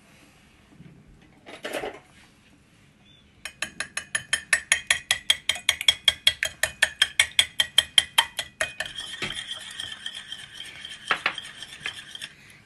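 A raw egg being beaten in a ceramic plate, the utensil clicking rapidly against the plate about six times a second, then changing to a continuous scraping stir about nine seconds in.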